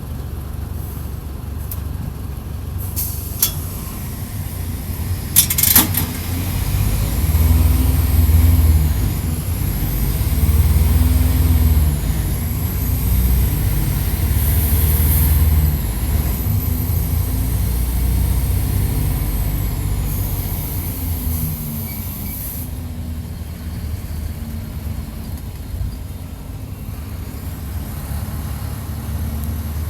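Mercedes-Benz OF-1722 bus engine, heard close up, pulling hard at high revs in several rising and falling surges, then running on more steadily in the second half. Two short sharp noises come before the surges, near the start.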